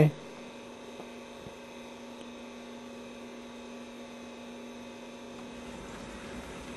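Faint steady electrical hum over low hiss, ending near the end.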